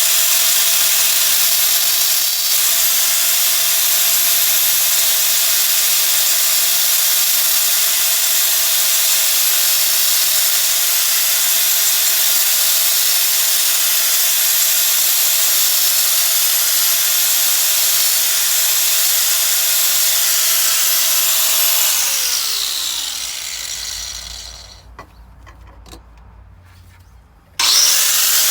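Electric grinder sharpening a dulled axe blade, running at steady speed with a loud grinding hiss. About 22 seconds in it is switched off and winds down, its pitch falling; it starts again near the end.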